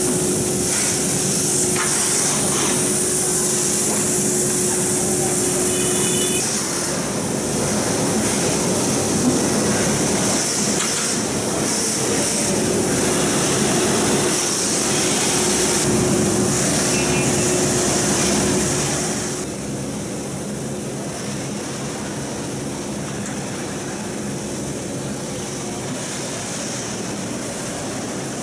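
Steady factory-floor noise on an electric scooter assembly line: a constant hiss over a low hum, with a few faint brief tones, easing off somewhat about two-thirds of the way through.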